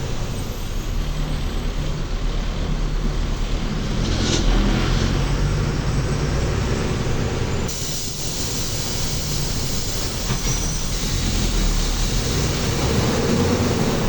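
Mercedes-Benz OF-1724L city bus diesel engine running under way, a steady low drone. About eight seconds in, the engine note dips and a hissing rush of air and road noise comes up.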